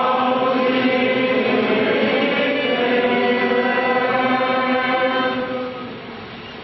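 Congregation and choir singing a chanted liturgical response in unison, with long held notes, fading away about five and a half seconds in.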